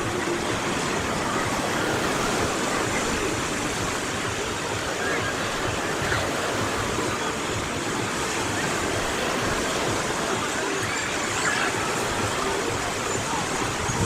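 Sea waves washing onto a beach, a steady wash of surf.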